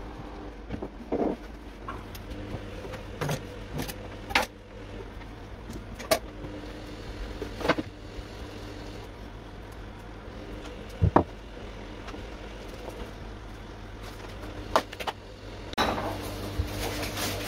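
Scattered light knocks and clicks of food and a utensil being handled against a glass baking dish on a kitchen counter, over a steady low hum. A louder rustle comes near the end.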